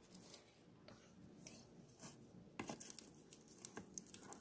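Faint, scattered clicks and taps of small plastic dollhouse chairs being handled and set down.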